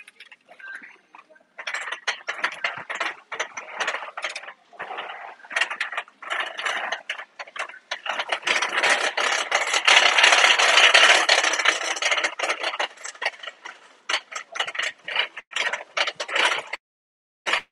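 Close handling noise: the fabric of a backpack rustling and scraping near the microphone, with many small clicks. It is loudest around the middle.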